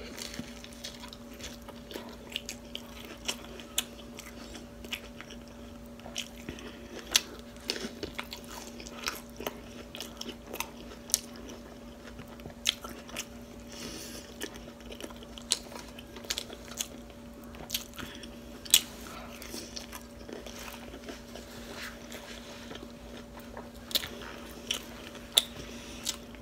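Close-up mouth sounds of eating a soft flour-tortilla chicken taco: biting and chewing, with many irregular sharp smacks and clicks.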